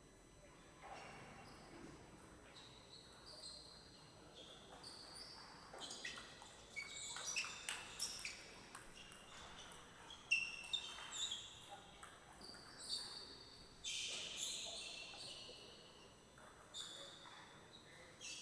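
Table tennis rally: the celluloid-type ball clicking off the table and rackets in quick exchanges, with sports shoes squeaking on the court flooring as the players move.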